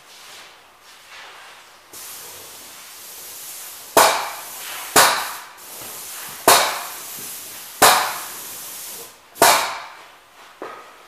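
Paint spray equipment spraying primer: a steady hiss from about two seconds in, broken by five sharp, loud hissing bursts roughly a second or so apart, each fading within half a second.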